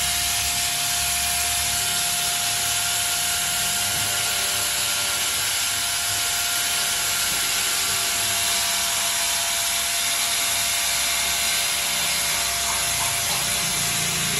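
Small angle grinder running steadily, its disc cutting into a black plastic motorcycle headlight visor: a constant whine over a steady hiss.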